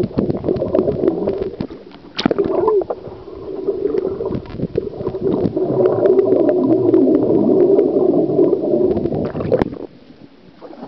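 Muffled gurgling and bubbling of seawater heard through a submerged camera's microphone, with many small clicks and knocks and exhaled air bubbles. The sound drops away about a second before the end as the camera comes above the surface.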